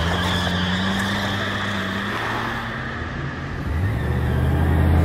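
Car engines running at a steady low hum. About four seconds in, the pitch steps up and the sound grows louder as an engine is revved.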